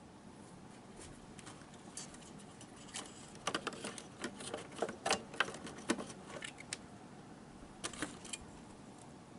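Faint, scattered small clicks and rattles of hands handling wiring and circuit boards inside an open CRT television chassis, thickest from about three to six seconds in, with a couple more near the end.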